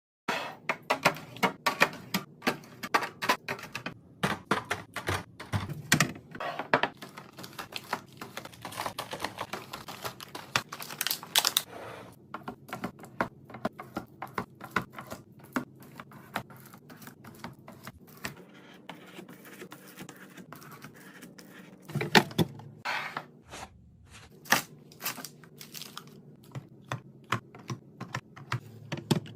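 Food containers and packaging being handled and set down while restocking a fridge: a dense run of sharp clicks, taps and light knocks with some crinkling, thinning out in the middle and picking up again later.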